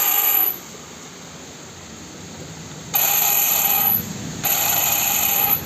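Hero Passion Pro electric starter motor whining loudly in three short bursts as the self-start button is pressed. With the magneto and one-way clutch removed, it spins on its own. The loud noise comes from the starter motor itself, not the one-way clutch.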